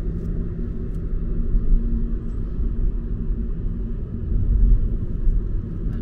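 Car driving: a steady low rumble of road and engine noise.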